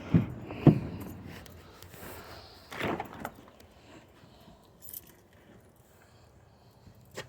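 Small items being rummaged through and handled, clinking and knocking. Two sharp knocks come in the first second, a longer rattle about three seconds in, and single small clicks near five seconds and at the end.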